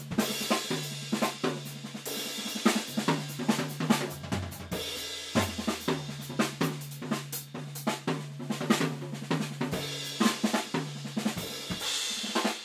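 Drum kit played in a busy groove of snare, bass drum and cymbals with dense rapid strokes, the cymbals ringing the whole time, in an unprocessed room recording. A low drum rings out from about four to five and a half seconds in.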